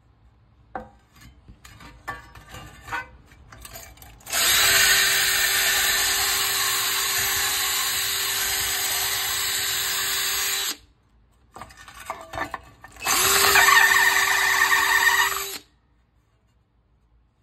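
Hercules 20V cordless drill spinning a wire cup brush against a rusted steel pan, scrubbing off the rust: a steady motor hum under a harsh scraping hiss. There are two runs, a long one of about six seconds and then, after a pause, a shorter one that rises in pitch as it spins up. Light knocks come from the pan being handled before and between the runs.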